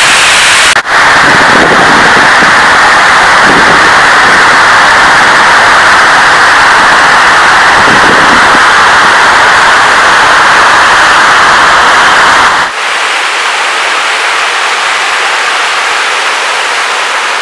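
Loud, steady rushing roar of a waterfall. It changes abruptly about a second in, and again about three-quarters of the way through, where the low rumble drops away and it gets slightly quieter.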